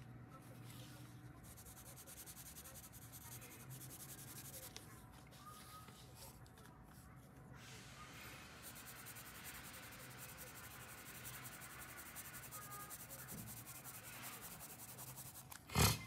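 Coloured pencil scratching softly across paper in repeated shading strokes, getting scratchier from about halfway through. A single sharp click near the end.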